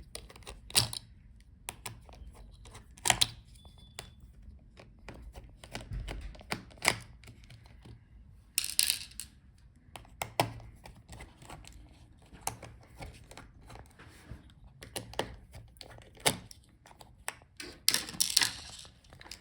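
Small screwdriver working out the tiny screws that hold a laptop's speakers, with irregular light clicks and taps of metal and plastic. Two brief scraping sounds come about halfway through and near the end.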